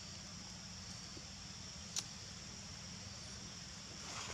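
Steady high-pitched buzz of insects in the forest, with a single sharp click about two seconds in.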